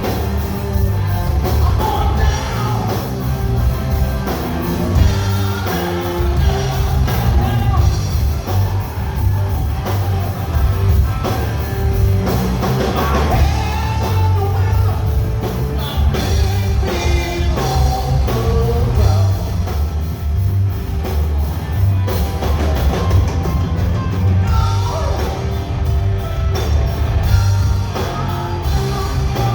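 Live rock band playing, with electric guitar, bass and drum kit and a singer's voice over them.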